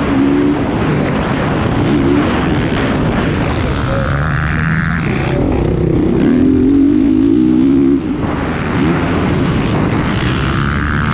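Motocross bike engine at race pace, revving up and down through the gears, with wind rushing over the microphone. The revs drop off briefly about eight seconds in.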